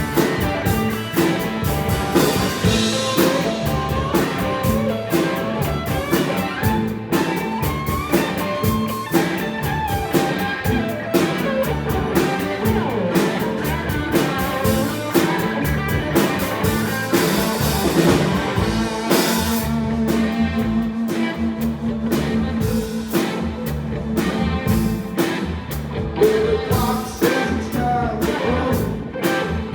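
A band playing blues-rock music with guitar and a drum kit, the beat steady throughout. A low note is held for several seconds past the middle.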